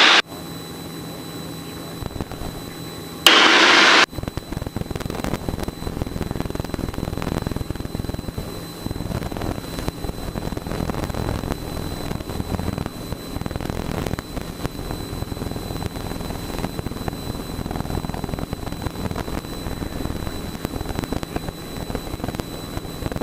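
Light single-engine piston airplane in the climb: engine and airflow noise picked up in the cockpit, an uneven crackly rumble. A short loud burst of static a little over 3 seconds in, after which the rumble is louder.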